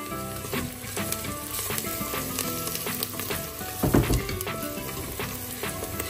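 Sliced onions and spices sizzling and crackling in hot oil in a stainless steel pot. A wooden spatula stirs them, with a loud knock against the pot about four seconds in.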